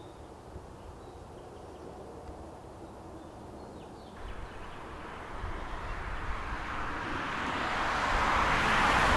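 A car driving, its engine and road noise rising steadily in level from about four seconds in.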